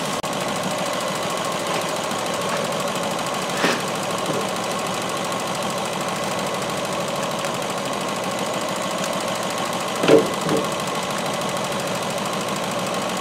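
Ford C-Max 1.6 petrol engine idling steadily. Two brief knocks come through, about four and ten seconds in.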